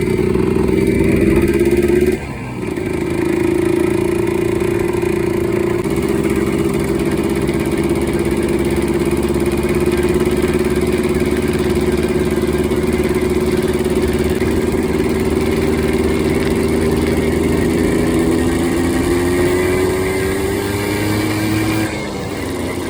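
Yamaha Blaster's 195 cc air-cooled two-stroke single running at steady throttle, freshly rebuilt with a new cylinder kit and being run gently. The engine note dips sharply about two seconds in, then holds with a slowly drifting pitch until it drops off near the end.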